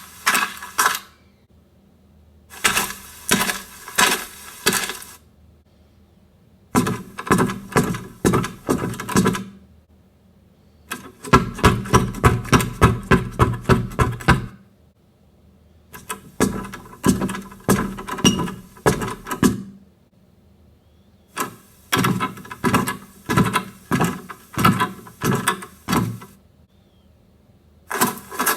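Repeated bursts of rapid clicking and clattering, a few strokes a second, each burst lasting two to five seconds with short silent pauses between them.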